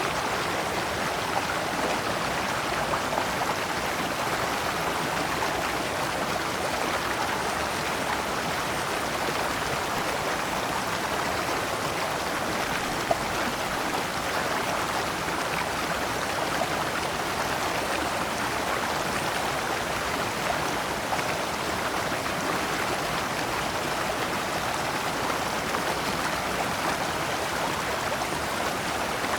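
Shallow stream running over large stones in small cascades, a steady rushing and babbling with light splashes.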